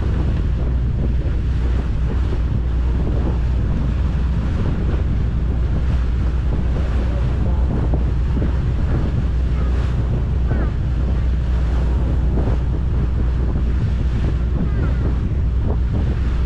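A boat under way at sea: a steady low engine drone with water rushing past the hull and wind buffeting the microphone.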